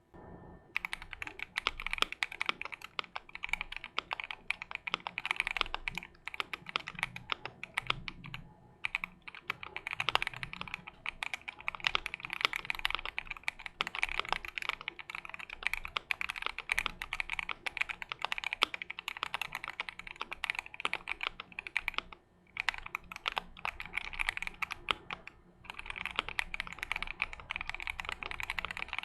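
Typing sound test on a Keychron Q1 mechanical keyboard with a polycarbonate plate and Everglide Aquaking V3 linear switches, modded with PE foam and tempest tape and no silicone bottom sheet. Fast, steady keystrokes with a few brief pauses give a poppy, marbly thock.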